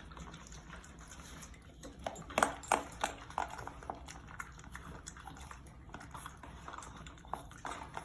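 French bulldogs eating raw food from their bowls: wet chewing and licking, with a handful of sharp clicks and knocks about two to three and a half seconds in.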